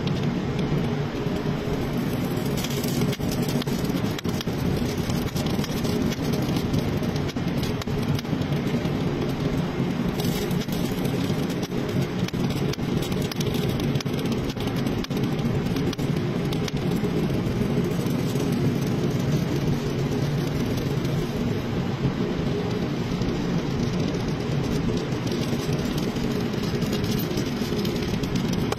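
TIG welding arc on thin stainless steel sheet, hissing steadily as filler rod is fed in, over a steady low machine drone like a running engine.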